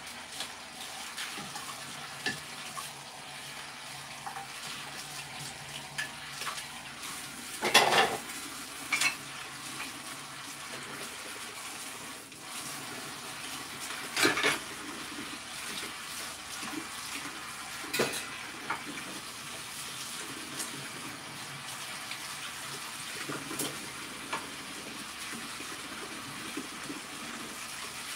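Kitchen faucet running steadily into a sink as dishes are washed by hand, with a few sharp clinks and clatters of dishware, the loudest about eight seconds in.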